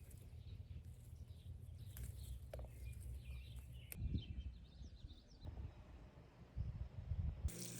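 Birds chirping in short calls over a low wind rumble on the microphone, the sound changing abruptly a few times as clips cut.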